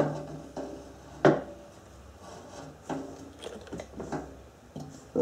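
The metal pipe of a new catalytic converter knocking and scraping as it is worked into place under a car. The sharpest knock comes about a second in, with lighter clicks and rubbing around it.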